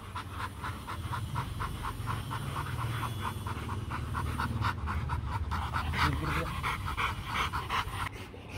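Rottweiler panting hard and fast, about four breaths a second, during mating.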